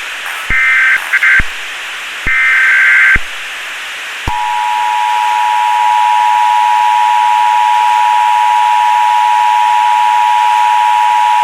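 Emergency Alert System tones. The last of the harsh, rapid two-pitch digital data bursts of the SAME header ends about three seconds in. About a second later the steady two-tone attention signal (853 and 960 Hz) begins and holds, over a constant hiss.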